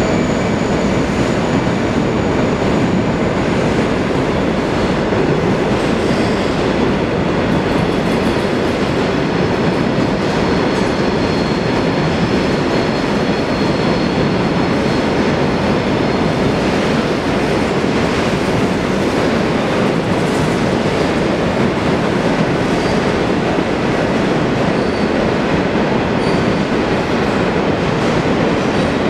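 Empty grain hopper wagons rolling steadily along the track, a continuous dense rumble of wheels on rails. Faint high wheel squeal sounds now and then in the first half.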